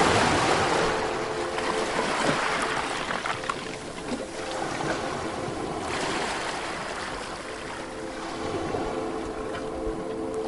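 Ocean surf: waves breaking and washing up onto a beach, one surge at the start and another about six seconds in.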